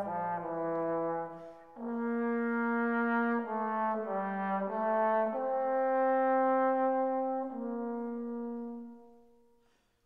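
Slow background music of long held chords, changing every second or two, that fade out near the end.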